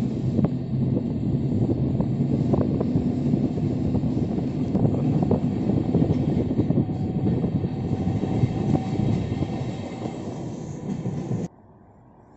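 Passenger train running, heard from a coach window: steady rumble of wheels on rails with sharp clicks as the wheels pass over rail joints and points, and a faint steady whine midway. The sound cuts off abruptly near the end to a much quieter background.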